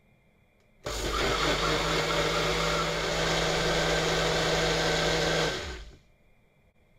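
Countertop blender blending pumpkin, millet and milk into a purée: the motor starts abruptly about a second in, runs steadily for about five seconds, then winds down with a falling pitch.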